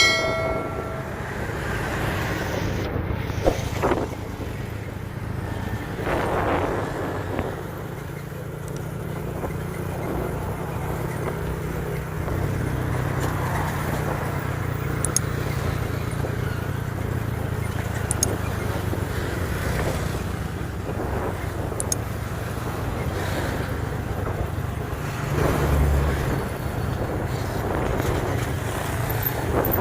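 A motor vehicle's engine running steadily under way, with road and wind noise, its pitch shifting a little now and then. A brief high pitched tone sounds right at the start.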